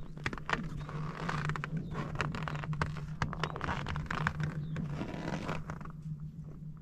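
Crunching and scraping on packed snow in a few slow bursts, with many small clicks, over a steady low hum.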